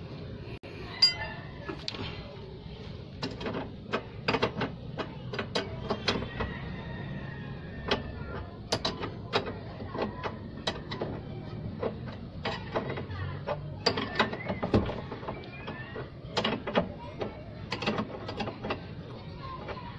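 Hand tools clicking and clinking against metal at irregular intervals, a few to several sharp clicks every couple of seconds, during the fitting of a tie rod end on a Suzuki Multicab's steering.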